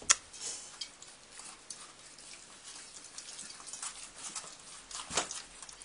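Pug puppies eating and scrabbling around a stainless steel feeding bowl: an irregular run of small clicks, taps and patters, with a sharp knock just after the start and another about five seconds in.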